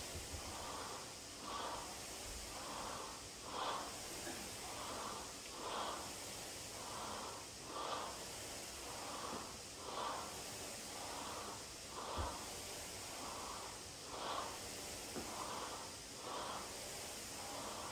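A person breathing hard from exertion during a dumbbell workout, in-breaths and out-breaths following each other in a steady, even rhythm. A single low thump about two-thirds through.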